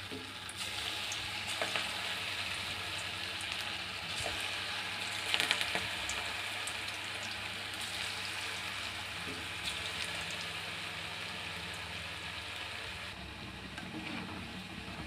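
Pinched lumps of rava and vegetable pakoda dough deep-frying in hot oil in a kadai, sizzling steadily. The sizzle swells about half a second in and flares louder around five seconds in as more pieces go into the oil, then eases a little near the end.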